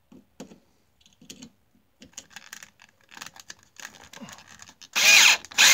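Cordless drill wired by cord to a jump box, driving a screw into a wooden block: faint clicking and crackling as the screw turns in, then about five seconds in a loud, stuttering rattle starts as the screw is driven home.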